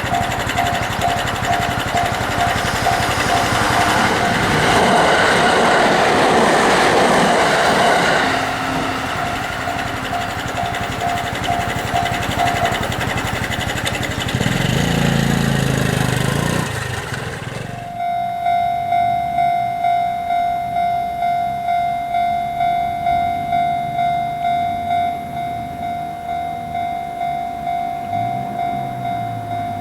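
A train runs loudly past a Japanese level crossing while the crossing's warning bell rings 'kan-kan' through the noise. About eighteen seconds in, the train noise stops abruptly and the crossing bell rings on alone, a clear ringing tone repeating about three strikes every two seconds.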